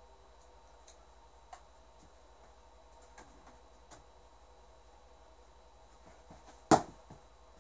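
Scattered faint clicks and taps of objects being handled, then one sharp loud knock near the end, over a faint steady hum.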